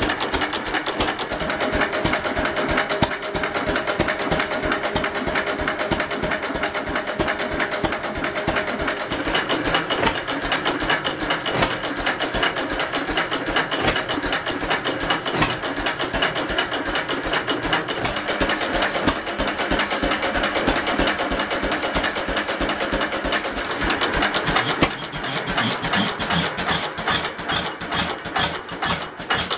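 Fairbanks-Morse Z 3 hp stationary engine running steadily, with a rapid, even mechanical ticking and clatter. The sound grows a little quieter and thinner near the end.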